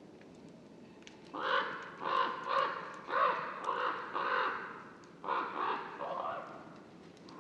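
Common raven calling: a run of short, repeated calls that begins about a second in, with a short break near the middle.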